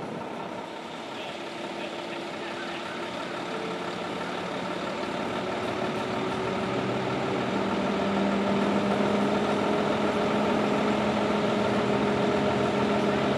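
Heavy truck engine running, a steady drone with a few held tones over a noisy hum, gradually getting louder.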